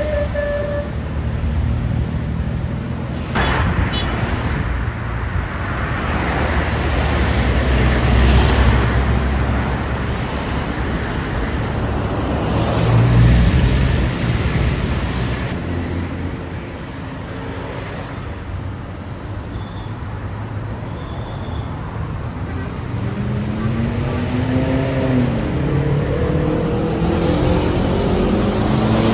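Busy road traffic with heavy-vehicle engines running and passing, the noise swelling as vehicles go by. Near the end, one engine's note rises and falls.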